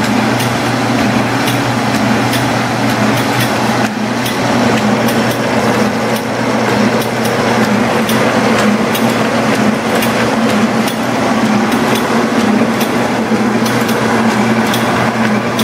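Roan 4500 servo sideweld bag machine running: a steady mechanical hum with regular clicks roughly every two-thirds of a second.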